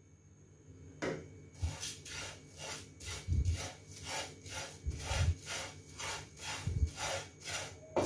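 Wooden spatula scraping and stirring dry red flattened rice (poha) in a nonstick frying pan as it dry-roasts: quick rasping strokes about three a second, with a dull knock every second or two. It starts about a second in.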